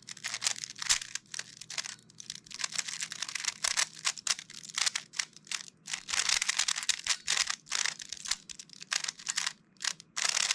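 A non-magnetic metallic 3x3 speed cube being turned fast during a solve: a rapid, irregular run of plastic clicks and clacks from the layer turns, with brief pauses between bursts.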